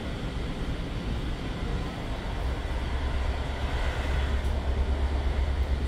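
PKP Intercity passenger train running along the track: a steady low rumble with continuous rolling noise, getting slightly louder toward the end.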